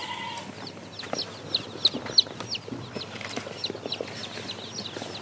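A box of young Sonali chicks peeping together: a constant stream of short, high, falling cheeps, several a second, overlapping one another.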